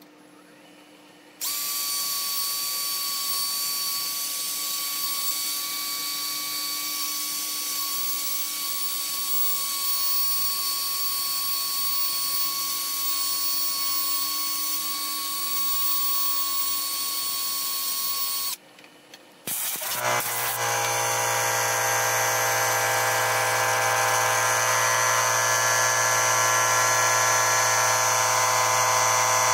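Cordless drill with a sanding pad running steadily, sanding a black walnut bowl on the lathe, a constant whine. The whine stops about 18 seconds in. About a second later, a deeper machine hum with many layered tones starts up and rises as it comes up to speed.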